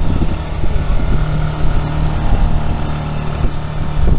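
Fishing boat's engine running steadily with a low hum.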